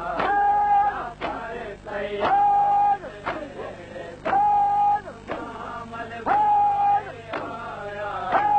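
Male voice chanting a noha, an Urdu lament, holding a long steady note about every two seconds, over a steady beat of about one stroke a second.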